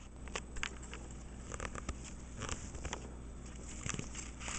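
A cat chewing and tugging at cut flower stems and fern fronds, making a scatter of small, irregular crackles and clicks.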